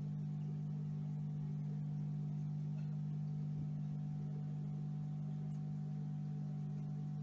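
A steady low droning tone that holds without change, like a sustained pad in ambient background music.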